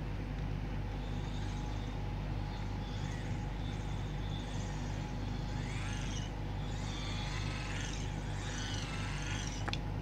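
Small microwave-oven turntable synchronous motor and its gearbox being turned by a hand crank as a generator: a steady low whir with high squeaks coming and going in the second half.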